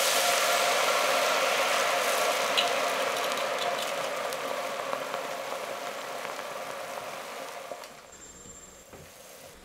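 Red wine sizzling as it hits a hot pot of fried shallots and garlic to deglaze it, with a few small pops. The sizzle dies away steadily over about eight seconds as the wine settles into a bubble.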